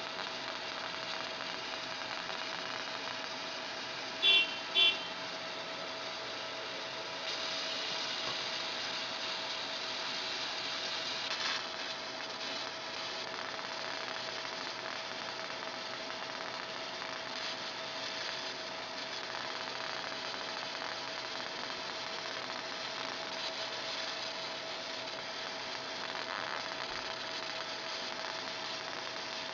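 Fiber laser marking machine engraving an aluminium plate: a steady hum with one constant mid-pitched tone over a hiss, a little louder from about seven to eleven seconds in. Two short loud blips about four seconds in.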